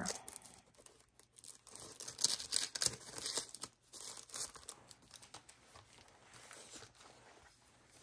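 Crisp rustling and crinkling of a glassine paper bag and handmade paper journal pages being handled as cards are slid into the bag. It is busiest a couple of seconds in, then settles into quieter, sparser paper handling.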